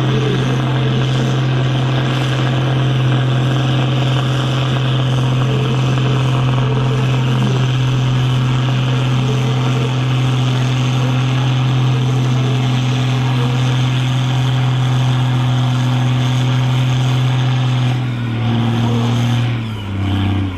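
Case IH 1455 XL's six-cylinder diesel engine running at high, steady revs. Near the end the revs drop in a couple of steps.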